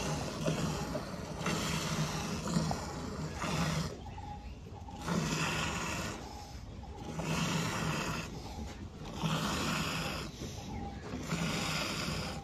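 Hand-milking: jets of milk squirting into the froth in a full steel bucket, a rhythmic hissing swish that comes in spells of about a second with short pauses between them.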